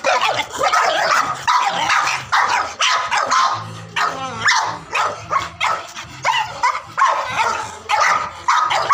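Dogs barking in a rapid series, about two barks a second.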